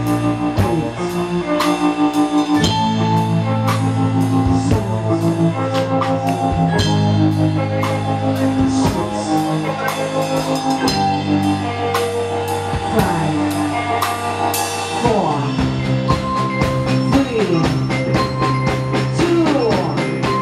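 Live band playing through a PA: a drum kit keeps a steady beat under electric guitar, bass and keyboard.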